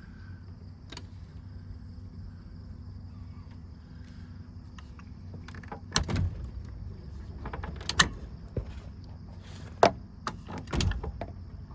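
A pontoon boat coming in to its dock: a steady low rumble, then, from about halfway through, a few sharp knocks and clunks, about one every second or two.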